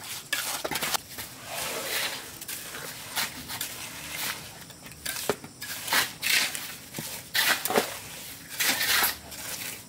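Hand tools working wet mortar: irregular scraping and crunching, with a couple of sharp clicks about five and seven seconds in.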